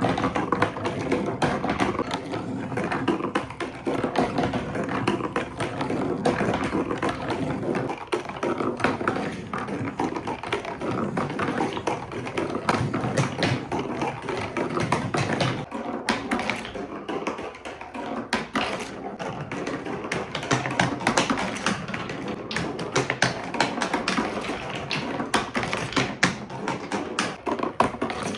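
Many marbles rolling and clattering down a plastic TrixTrack marble run: a dense stream of small clicks and knocks over a rolling rumble. About halfway through the rumble thins, leaving sharper, more separate clicks.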